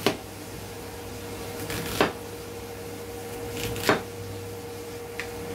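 Cleaver chopping through an onion onto a plastic cutting board: three knife strikes about two seconds apart, each a brief crunch through the onion ending in a knock on the board, and a lighter tap near the end. A steady low hum runs underneath.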